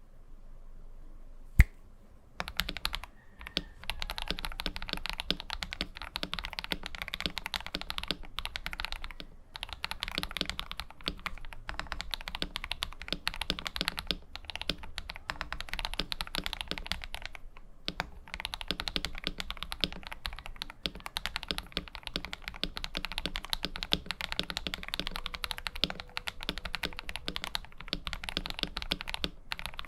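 KBD67 Lite R3 mechanical keyboard with KTT Kang White linear switches lubed with Krytox 205g0, tape-modded and with PE foam, typed on quickly and continuously with a few short pauses. A single sharp click comes about a second and a half in, before the typing starts.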